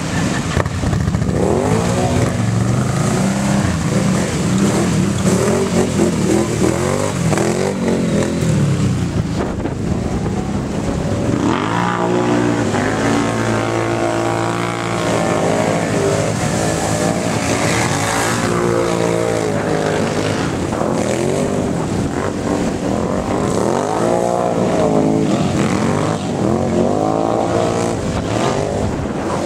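ATV engines revving up and falling back again and again as the quads plough through shallow water, with the splash of spray thrown up by the tyres.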